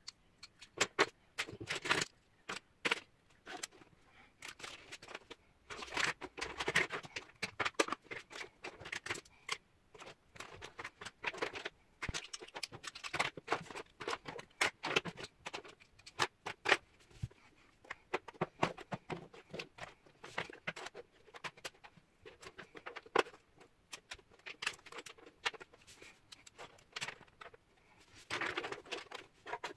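Plastic makeup compacts, tubes and pencils clicking and clattering as they are picked up, set down and slid across a wooden surface, in quick irregular taps with a few short scraping rustles.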